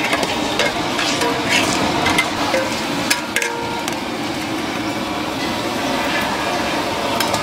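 Metal spatula and wire skimmer scraping and knocking against a large steel wok as shrimp are stirred and scooped out, with irregular clinks over a steady sizzle of the shrimp cooking in their liquid.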